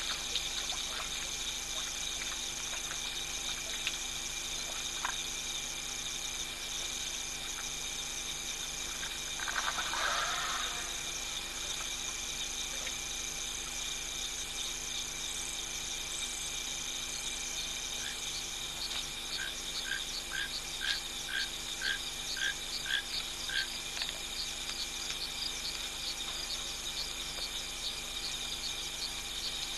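Steady chorus of night insects trilling at a waterhole. About ten seconds in there is a brief rushing sound, and later a run of about nine short, evenly spaced calls, about two a second, from a small animal.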